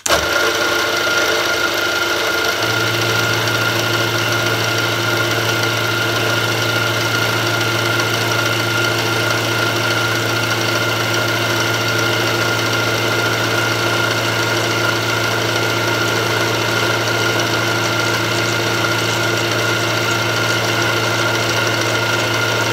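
Milling machine running with its end mill cutting a circular pocket in 3 mm brass plate: a steady whine with a constant high tone, joined by a deeper hum about two and a half seconds in.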